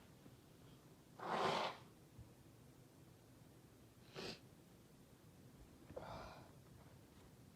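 A woman's induced sneeze about a second in, the loudest sound, followed by two shorter, quieter bursts of breath, one near the middle and one near the end.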